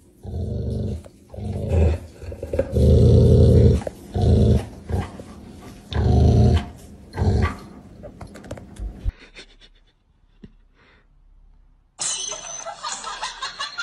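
A large shaggy dog growling in a series of low, rough growls, each half a second to a second long, which stop about nine seconds in. Near the end a different, higher sound from another clip begins.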